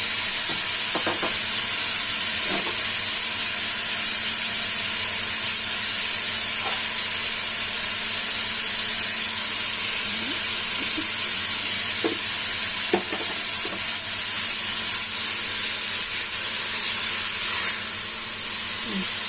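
Sliced smoked beef sizzling steadily in hot oil in a wok as it is stir-fried, with a few light clinks of the spatula scattered through.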